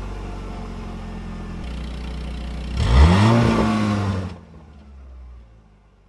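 Engine running steadily, then revving up sharply about three seconds in and falling away about a second and a half later.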